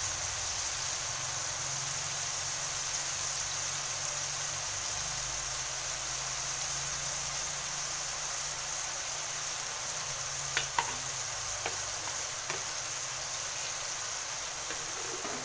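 Food frying in a pan: a steady sizzle, with a few light clicks about ten to twelve seconds in.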